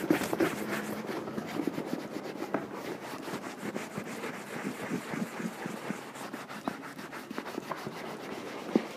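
A cloth rag rubbing over a horsehide leather boot in many quick strokes, buffing wax polish to a shine.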